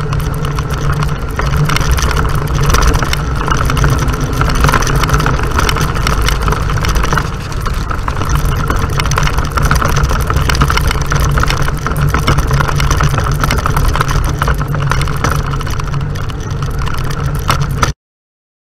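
Engine of an off-road vehicle running steadily as it drives along a dirt road, with rough wind and road noise on a vehicle-mounted action camera. The sound cuts off suddenly near the end.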